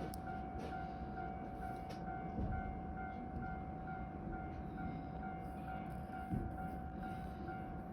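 Train running on the tracks below, a steady low rumble, with a steady thin tone and a rapid, regular beeping over it.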